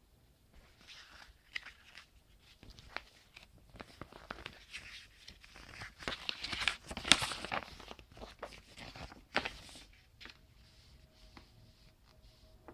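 Paper rustling and crinkling as a folded paper poster insert is handled and opened out, with many small taps and clicks; loudest about six to seven seconds in, dying away after about ten seconds.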